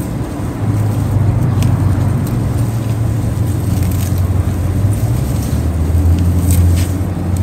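A low, steady engine-like hum that drops slightly in pitch about five and a half seconds in, with a few faint clicks over it.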